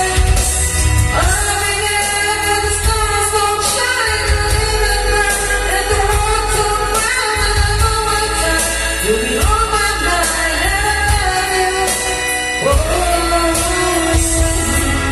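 A pop song with a singing voice and strong, steady bass, played loud through a videoke set-up of Crown JH 158 speakers driven by a Xenon Pro 650-watt amplifier during a sound test.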